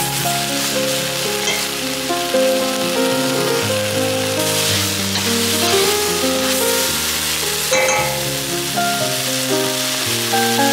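Fresh kale sizzling in a pot as it is stirred with a wooden spatula, with background music over it. A single knock about eight seconds in.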